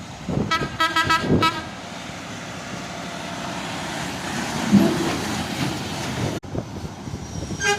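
Truck horn tooting a rapid string of short blasts for about a second, then the steady noise of passing road traffic.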